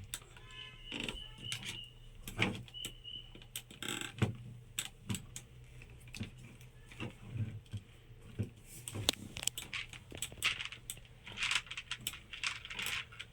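Irregular small clicks, taps and rattles of a homemade syringe-driven hydraulic model excavator being worked by hand as it lifts small objects, with a short high squeak in the first few seconds.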